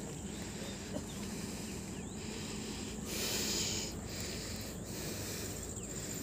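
Steady outdoor rushing noise, heaviest in the low end, with a faint high steady insect drone, and a brief louder hiss of rustling about three seconds in.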